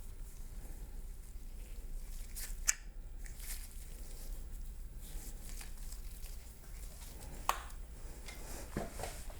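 Hand-work noises on a Tremec T-45 shifter assembly: pliers and metal parts clicking and scraping, with two sharp clicks, one about a third of the way in and one near the end, over a steady low hum. The clicks come from working the pin into line with its hole.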